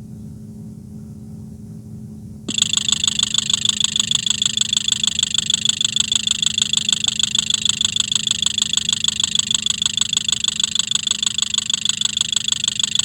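Engine idling with a low, steady hum, then about two and a half seconds in a loud, rapid, even mechanical ticking cuts in, as picked up by an electronic stethoscope probe held on the engine.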